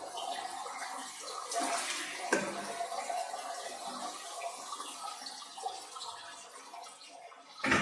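Water splashing and trickling as a small plastic cup scoops excess water out of a plastic breeding box, bringing the level down to the rim of the egg incubator inside it. There is a short sharp knock near the end.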